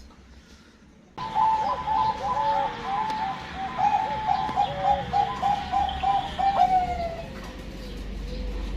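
Male zebra dove (perkutut, a Thai-bred 'Bangkok' songbird line) singing a long run of quick, rolling cooing notes. The song starts about a second in and ends about seven seconds in on a drawn-out note.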